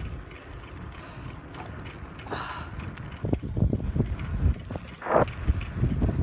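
Mountain bike rolling along a dirt trail: a steady tyre rumble with frequent knocks and rattles from the bike over rough ground, busier after about three seconds, and two short rushes of noise, one about two seconds in and one near the end.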